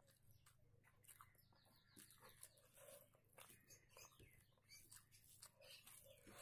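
Faint chewing and wet mouth noises of eating rice and egg curry, heard as many small irregular clicks over a low background hum.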